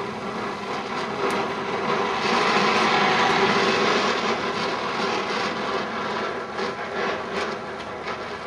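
Cobra oxy-fuel torch flame hissing steadily on molten steel, with a few short crackles. The hiss swells about two seconds in and eases off again after a couple of seconds.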